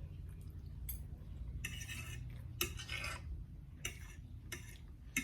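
Eating utensil clinking and scraping against a dish, in several short strokes, over a steady low hum.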